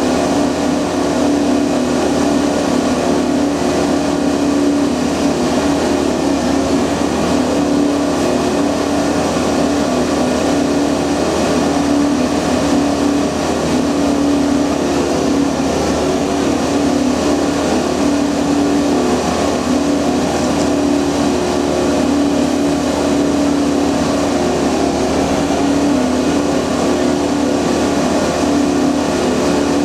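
Multiple tie tamper (railway track tamping machine) running at a standstill: a continuous, even machine drone with a steady hum, and no tamping strokes or knocks.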